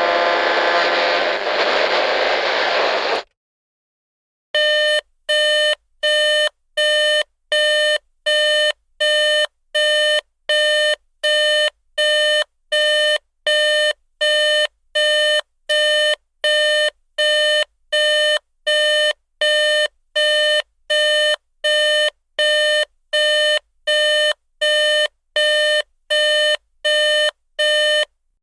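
Radio static hiss cuts off about three seconds in; after a short silence a digital alarm clock starts beeping, one steady electronic beep about every second, repeating evenly.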